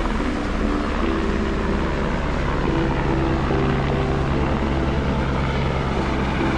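Helicopter flying past, its rotor and engine making a steady drone.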